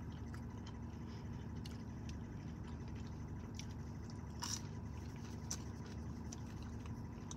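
Faint chewing: small wet mouth clicks from someone eating a chicken nugget, the most distinct about halfway through, over the steady low hum of a car cabin.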